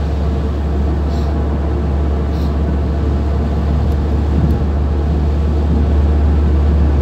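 Road noise inside a moving car on a wet highway: a steady low rumble from engine and road, with tyre hiss from the wet surface.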